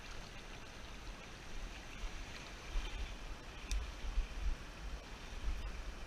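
Water of a small, shallow river running over stones: a steady rush, broken by irregular low bumps, with a single sharp click a little past halfway.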